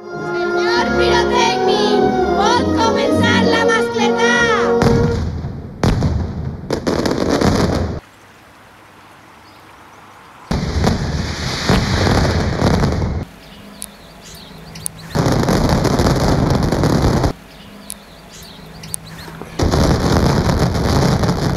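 About five seconds of music, then loud Valencian mascletà firecracker barrages. They come as dense bursts of two to three seconds each, cut four times against much quieter gaps.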